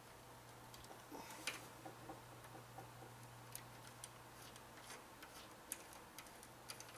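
Faint, scattered small metallic clicks and ticks of a screw and washer being fitted and turned into a radiator mounting hole of a computer case, over a faint steady low hum.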